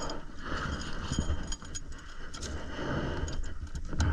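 Metallic clinking and knocking of a motorbike's drive chain and sprocket being worked by hand, just after the slipped chain has been put back on the sprocket. Scattered sharp clicks with a ringing metal edge.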